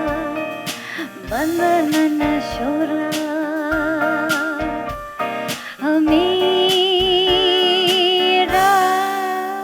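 Live jazz band playing an arrangement of an Indian song: a melody of long held notes with vibrato and upward slides, over regular percussion hits.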